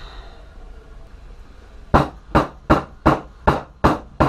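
Seven sharp metal knocks, about three a second, starting about halfway in: the outboard CV joint of a Honda Rincon 680 front axle being driven onto the shaft's splines to lock it past the snap ring.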